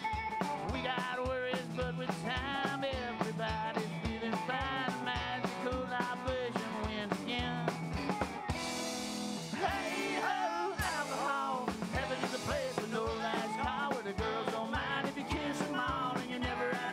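A live band plays an instrumental passage with electric guitars, upright bass and a drum kit keeping a steady beat. About halfway through, the bass drops out briefly under a wash of cymbals before the full band comes back in.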